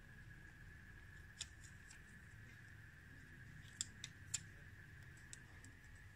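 A few faint, sharp clicks and taps as fingernails and a small tempered glass screen protector touch the plastic body of a DJI Osmo Action 3 action camera: one about a second and a half in, then three close together around four seconds in. A faint steady high whine sits underneath.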